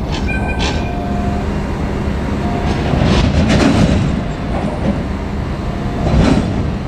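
Freight train rolling past with a steady rumble, its wheels clacking over rail joints in repeated groups. There are a few brief high squeals near the start.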